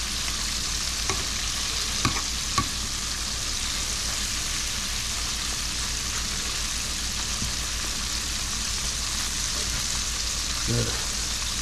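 Frog legs frying in a pan, a steady sizzle, with a few small clicks in the first few seconds.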